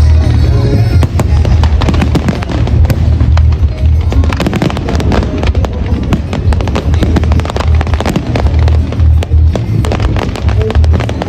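Fireworks exploding with many sharp cracks and pops, densest in the second half, over continuous background music.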